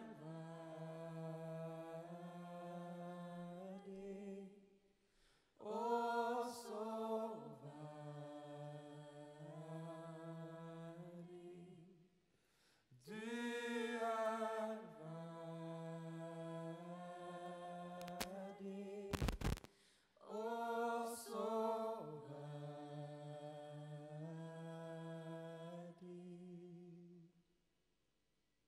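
Voices singing a slow worship song without accompaniment, in four long held phrases with short breaks between them. The singing dies away about 27 seconds in. A brief knock sounds about 19 seconds in.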